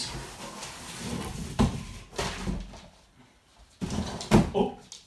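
Cardboard rustling and scraping as a bicycle wheel with its tyre is pulled out of a tall shipping box, with several dull knocks and thuds. The loudest knock comes about a second and a half in, and more follow near the end.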